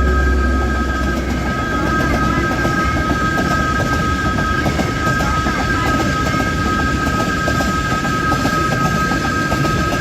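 A train passing over a road crossing, its wheels clattering on the rails over a low rumble, with a steady high two-note tone held over it.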